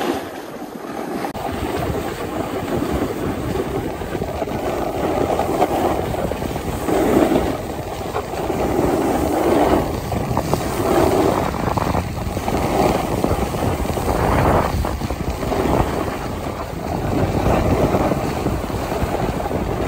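Wind rushing and buffeting over a handheld phone's microphone during a run down a groomed ski slope, mixed with the hiss of sliding on snow. The rumble swells and eases repeatedly without a break.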